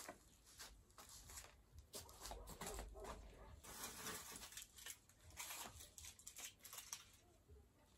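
Faint rustling and light irregular knocks and clicks as things are handled and picked up.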